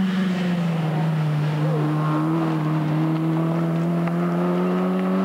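Rally car engine held at high revs, a steady drone whose pitch creeps slowly upward.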